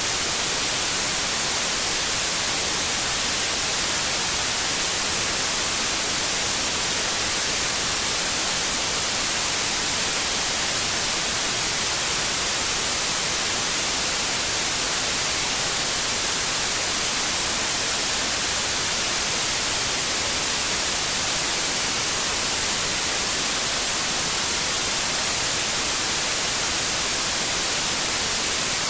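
Steady white noise: an even, unchanging hiss, strongest in the high range.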